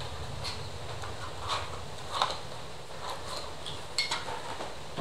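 Light clicks and taps of small plastic accessories and a packaging box being handled on a table, about half a dozen scattered through, the sharpest about two seconds in and near the end.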